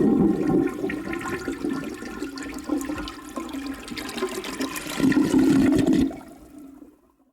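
A toilet flushing: a sudden rush of water that eases, swells again about five seconds in, then drains away and fades out.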